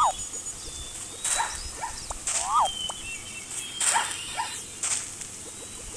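Zebra herd calling: short barking yelps about once a second, some sliding quickly up and down in pitch.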